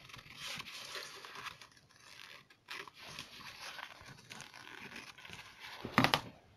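Lining fabric being trimmed along the edge of a glued leather panel: a faint, uneven rustle and scrape of cutting and handling, with a brief louder rustle near the end.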